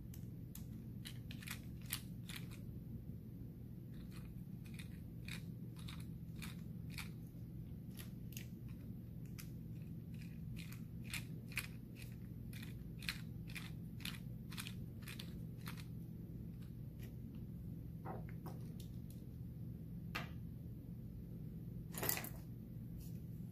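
Light metallic clicking of a thin metal tool working in the keyway of a Mul-T-Lock Interactive+ dimple lock cylinder, about two clicks a second, then a few heavier knocks as the cylinder is handled, the loudest near the end. A steady low hum runs underneath.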